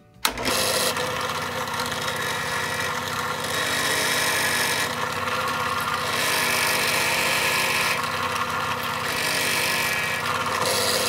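Benchtop drill press switched on and running, spinning a homemade mandrel pressed onto the end of a diecast toy's wheel axle to set the wheels on the base. The motor hum is steady, with a brighter grinding hiss that swells several times as the mandrel bears on the axle.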